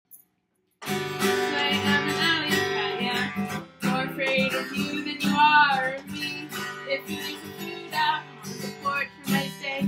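Acoustic guitar strummed, starting about a second in.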